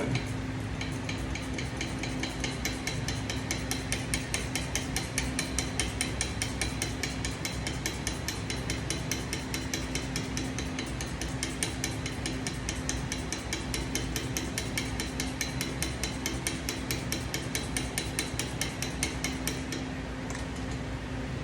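Hand ratchet wrench clicking at an even pace, about four or five clicks a second, as a bolt is worked on during the engine teardown; the clicking stops near the end. A steady low hum runs underneath.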